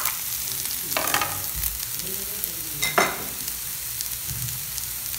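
Onions, tomatoes and green chillies sizzling in hot oil in a nonstick pan, stirred with a steel spoon. There are a few louder spoon knocks and scrapes against the pan, the sharpest about three seconds in.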